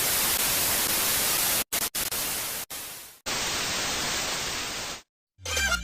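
Bursts of white-noise static that cut off and restart abruptly several times, in the manner of an edited TV-static glitch effect.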